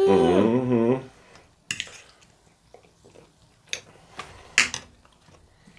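A voice trails off in the first second. Then, in near quiet, come about five short sharp clicks and light knocks of tableware being handled, the loudest near the end.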